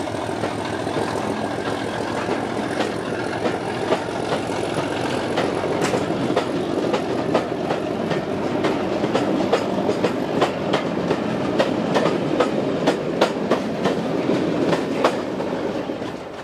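Loco-hauled passenger coaches passing close by, a steady rumble with sharp clicks of their wheels over the rail joints coming thick and fast. The noise falls away suddenly near the end as the last coach clears.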